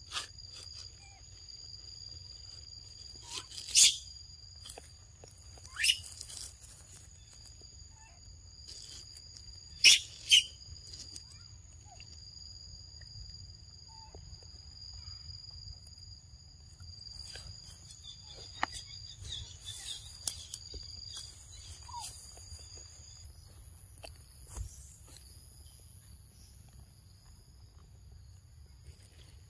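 Forest ambience: a steady high-pitched drone of insects, broken by a few sharp, loud high squeaks, the loudest two close together about ten seconds in.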